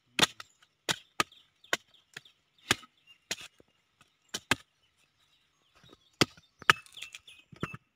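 A machete chopping into the fibrous husk of palmyra palm fruits (ice apples) to cut their tops open: about a dozen sharp chops at an uneven pace, with a pause of a second or so midway.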